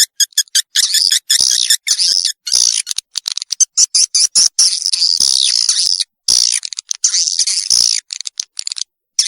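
Swiftlet lure-call recording of the kind played to draw young swiftlets into a new swiftlet house: high, dry chirping and twittering. It opens with a fast string of short chirps, about five a second, then turns into dense twittering cut by sudden short gaps.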